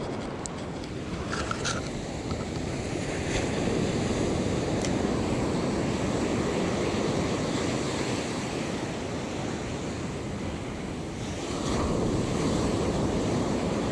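Surf breaking and washing up a sandy beach, a steady rush that swells louder about eleven seconds in, with wind buffeting the microphone. A few light clicks come in the first five seconds.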